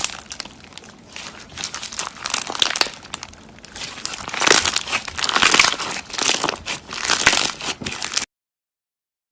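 Slime being squished and worked by hand, giving a dense, crackly run of small pops and squelches that swells and fades in waves. It cuts off suddenly near the end.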